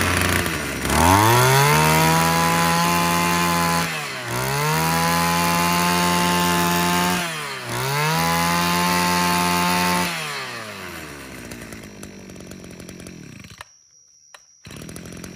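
Small two-stroke brush cutter engine, freshly pull-started, revved up three times under the throttle, each rev held for about three seconds with brief dips between, then dropping back to a quieter idle.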